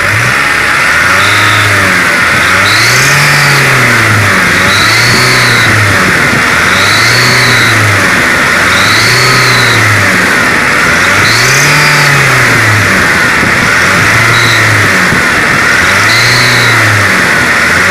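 Kia Sorento's 2.5-litre D4CB diesel engine revved over and over, about every two seconds, with a high whistle that rises and falls with each rev. The whistle comes from a drive-belt idler pulley that is sticking.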